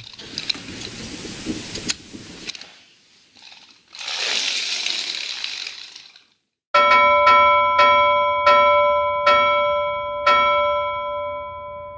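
Wooden gears of a UGears model tractor, driven by its rubber-band motor, whirring and clicking as it is wound and runs across a wooden floor. About seven seconds in, an outro chime begins: six struck bell-like notes, each ringing out and slowly fading.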